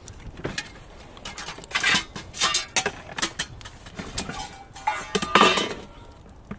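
Metal camp cookware and utensils clattering and clinking in a plastic storage tote as gear is rummaged through and lifted out. The clanks come irregularly, in a busy cluster about two seconds in and a louder, briefly ringing clank about five seconds in.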